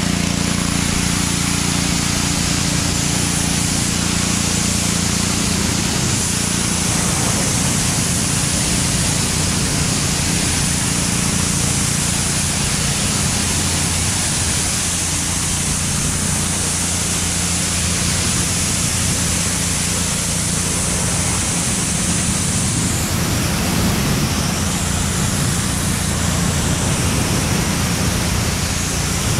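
Gas pressure washer's engine running steadily while its high-pressure water jet hisses against a pickup truck's body panels. The spray noise is steady and dips briefly in its higher part a little after the middle.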